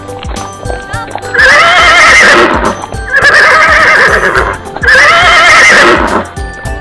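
A horse whinnying three times, each call about a second and a half long with a wavering pitch, over background music.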